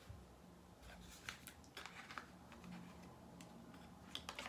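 Faint scrapes and light clicks of a small product box being handled and opened by hand.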